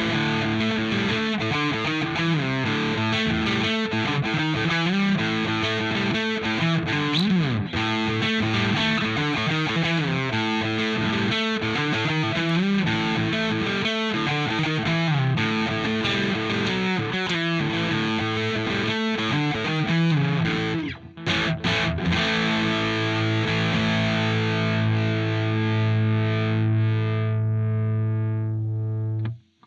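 Electric guitar played through a TC Electronic Mojo Mojo overdrive pedal, giving a distorted tone on chords and riffs, with a slide down the neck about seven seconds in. After a brief stop, a chord is held ringing for several seconds and then cut off sharply near the end.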